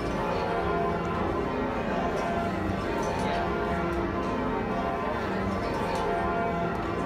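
A ring of ten church bells being lowered in peal, struck continuously in rounds as their swing is shortened. The overlapping bell tones are heard from the ringing chamber below the bells.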